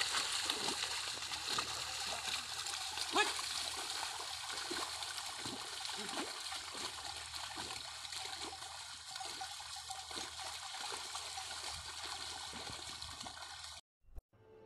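Water and mud splashing and sloshing as a pair of bullocks pull a plough through a flooded paddy field. The sound cuts off abruptly near the end.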